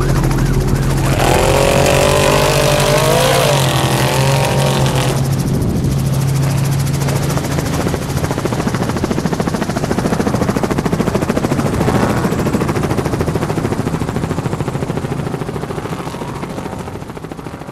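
Trophy-truck engines running hard at racing speed, the pitch rising and falling over the first few seconds, then a steady drone that fades out near the end.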